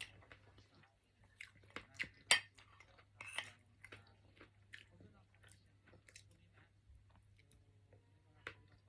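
A person chewing strawberries close to the microphone: a run of short clicks and smacks from the mouth, busiest and loudest in the first few seconds, then sparser and softer.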